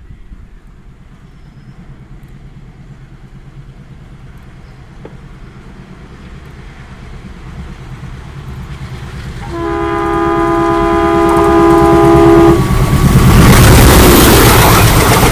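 WDG3A ALCO diesel-electric locomotive with its 16-cylinder ALCO 251 engine approaching at speed, its engine rumble growing steadily louder. It sounds one long horn blast of about three seconds, about two-thirds of the way in. Then the locomotive and train pass close with a loud rush of engine and wheel noise.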